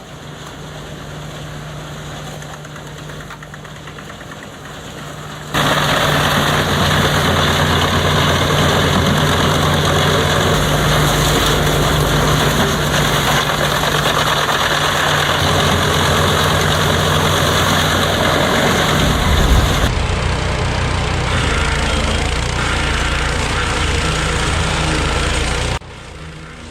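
Large wood crusher's heavy diesel engine running steadily. About five seconds in, it jumps abruptly to a much louder, noisy grinding din as wood is shredded. This eases to a lower, rumbling din past the two-thirds mark and drops sharply near the end.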